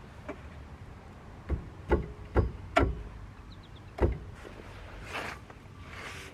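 Five sharp knocks of tools against the rear hub bearing assembly as its 18 mm mounting bolts are worked loose, four close together and one about a second later, then two brief scraping rustles near the end.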